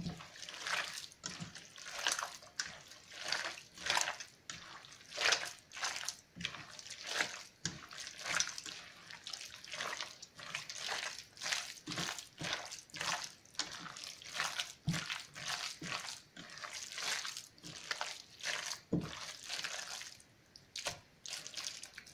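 Hands kneading and squeezing wet chopped pork and fat in a stainless steel pot, a rhythmic wet squelching about twice a second. Ice water has just been worked into the mince for homemade sausage filling.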